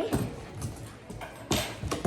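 Handling noises from a cardboard mystery box being opened: several light knocks and taps, with a short rustle or scrape about one and a half seconds in.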